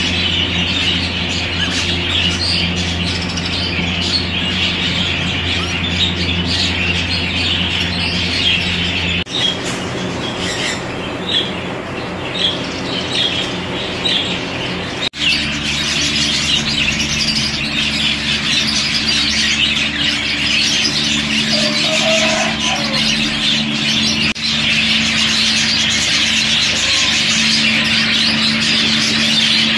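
A roomful of exhibition budgerigars chattering and chirping continuously, over a steady low hum.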